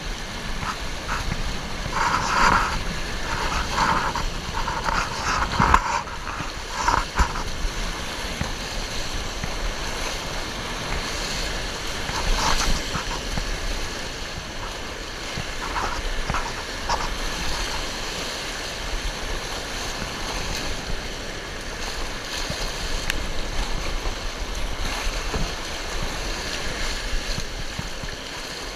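River rapids rushing and splashing around a canoe running through whitewater, with bursts of splashing in the first several seconds.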